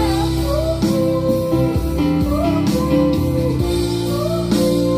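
Karaoke: a singer's voice through a microphone over a guitar backing track, both played through a JBL PartyBox speaker, with long held notes.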